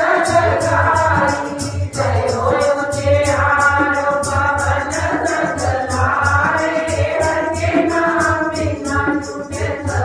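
A congregation of women singing a devotional aarti hymn together, kept in time by a steady jingling hand percussion beat about four times a second.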